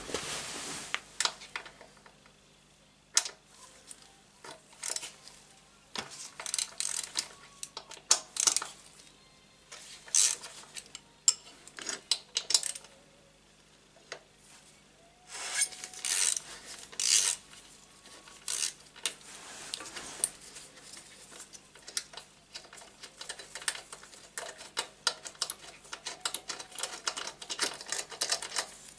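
Hand tools working on a motorcycle's right footrest bracket: irregular metallic clicks, clinks and rattles in clusters, with runs of quick clicks toward the end.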